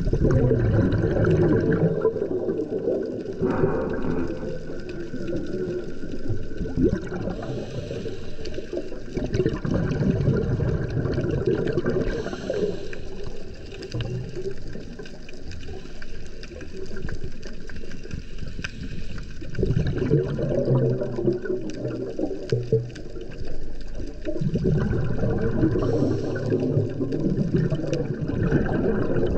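Scuba diver's regulator underwater: exhaled air bubbling out in bursts of gurgling every several seconds, with quieter stretches in between.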